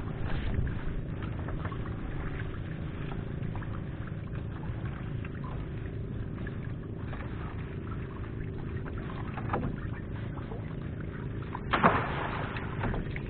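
Water pouring and splashing over a steady low engine hum, with a louder splash about twelve seconds in.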